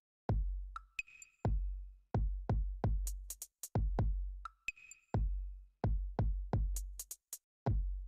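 Background electronic music: a drum-machine beat of deep bass-drum kicks with short, sharp high hits between them, starting a moment in after a brief silence.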